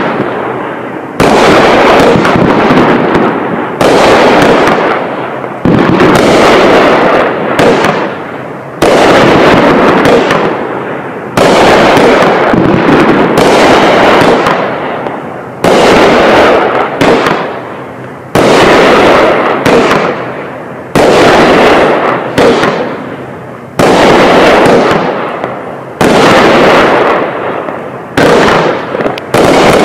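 A 200 g 16-shot firework cake firing shot after shot, about a dozen in all. Each shot is a sudden loud bang roughly every two to three seconds, followed by a hiss that dies away over about two seconds.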